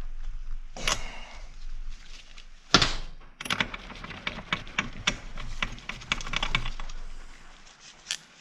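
Hand tools clicking and scraping on an old chainsaw as its spark plug is taken out: two louder knocks in the first three seconds, then a quick run of small metal clicks that dies away near the end.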